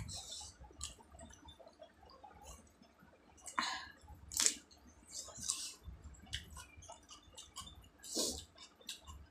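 Close-up mouth sounds of someone chewing a mouthful of rice eaten by hand, with irregular wet smacks and clicks. The loudest smacks come a few times in the middle and once near the end.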